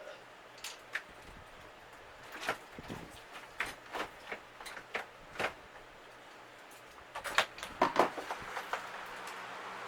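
Scattered small clicks and knocks of parts being handled while a refrigerator's interior panel is put back together, with a quick cluster of louder knocks near the end.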